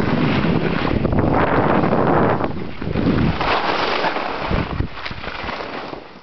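Wind rushing and buffeting over the microphone of a camera carried by a skier moving downhill. The noise eases off over the last couple of seconds and then drops away suddenly at the very end.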